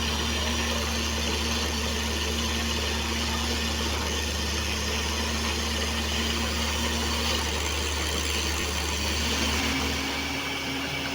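Borewell drilling rig's engine running steadily with a constant low drone and a hiss over it. Its note shifts slightly higher and a little quieter near the end.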